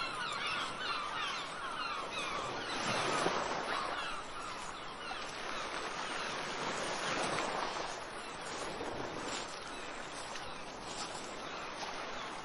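Gulls calling over breaking surf: many short, falling cries, thickest in the first couple of seconds, then thinning out. Waves rush in and swell twice, about three seconds in and again about seven seconds in.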